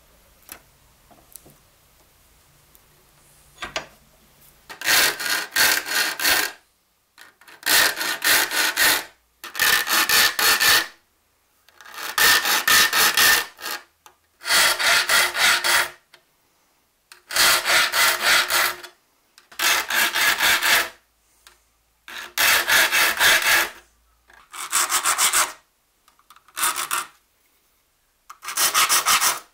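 A hand file rasping across the teeth of an old hand saw clamped in a vise, sharpening it. About five seconds in it starts a steady run of repeated filing strokes, each a second or two long, with short pauses between them.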